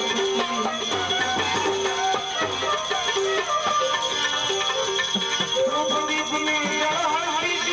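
Instrumental music: sustained melodic lines, some wavering, over dense jingling percussion.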